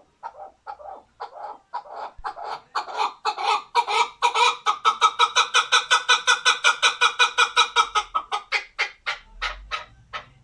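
Male chukar partridge giving its long rally call: a run of short, repeated clucking notes that starts slowly, quickens and grows loud through the middle, then slows and tails off near the end.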